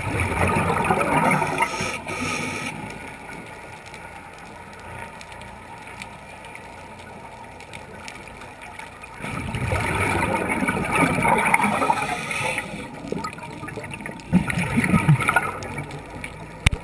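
Scuba diver's exhaled bubbles gurgling out of the regulator, heard underwater: a long burst at the start, another from about nine seconds in, and a few shorter gurgles near the end, with quieter stretches between breaths.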